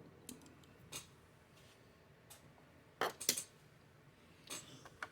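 Scattered small clicks and crinkles of Hot Wheels blister-card packaging being handled, the loudest a quick cluster about three seconds in.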